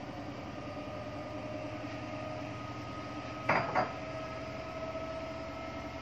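A glass bottle set down on a granite countertop: two quick clinks about a third of a second apart, over a steady hum.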